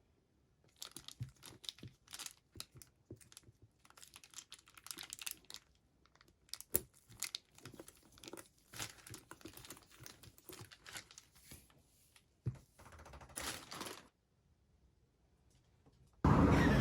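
Packaging being torn open and crinkled by hand in irregular rips and rustles, with one sharper rip about 7 seconds in. The rustling stops about two seconds before the end.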